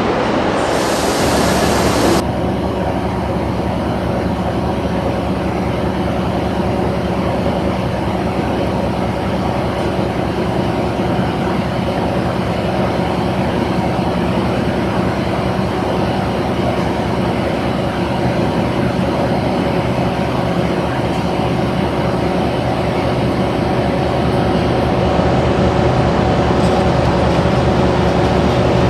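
Diesel locomotive engines running steadily as a pair of Class 66 locomotives approaches slowly, growing louder near the end. For the first two seconds a louder, rushing train noise plays, then cuts off suddenly.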